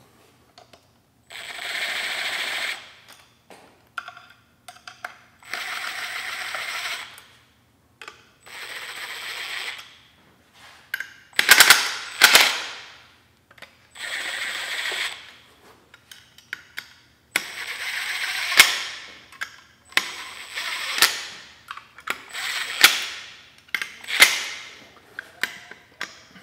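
Cordless impact driver running bolts down in about nine short bursts, one bolt after another. It spins freely and then hammers rapidly as each bolt snugs up; the hammering is loudest about eleven to twelve seconds in. Small metallic clicks of bolts and sockets being handled fall between the bursts.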